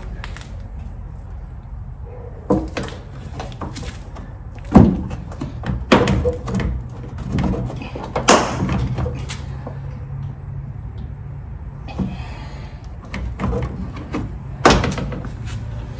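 Plastic fender trim on a pickup truck being pried and pulled back by hand: an irregular run of sharp plastic knocks and snaps, the loudest about five and eight seconds in, over a steady low hum.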